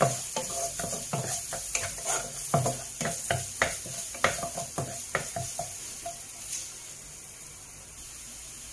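Chopped garlic and ginger sizzling in hot oil in a stone-coated frying pan, with a wooden spatula scraping and stirring against the pan in quick strokes. The stirring stops about six seconds in, leaving the steady sizzle.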